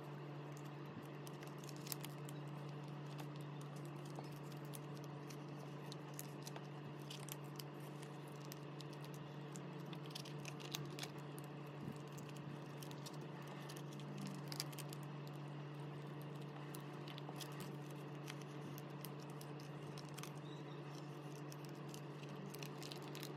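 Clear plastic binder sleeves rustling and crinkling as photocards are handled and slid into the pockets, with scattered light clicks and taps. A steady low hum runs underneath.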